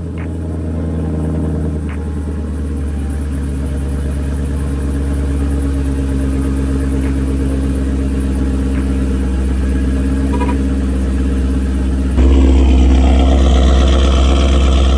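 Chevrolet Camaro SS V8 running at idle just after a fresh oil change, a steady low burble that swells about twelve seconds in; the idle is a little rocky, which the owner puts down to a throttle body needing more cleaning.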